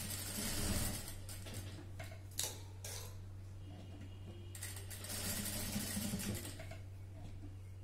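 Industrial single-needle lockstitch sewing machine stitching a dart in blouse fabric in two short runs, one at the start and another about five seconds in, over a steady low motor hum, with a couple of clicks in between.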